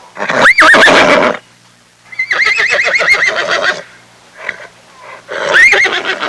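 Horse neighing three times: a short call, then a long quavering whinny, then a shorter call near the end.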